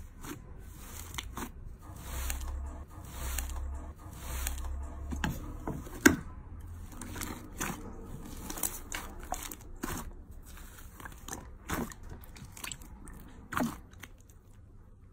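Hands squeezing, pressing and kneading fluffy slime mixed with clear slime in a glass bowl: sticky squelches with irregular sharp pops and crackles, the loudest pop about six seconds in.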